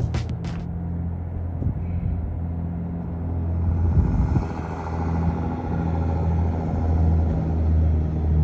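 Steady low rumble of an idling vehicle engine, with a few faint knocks.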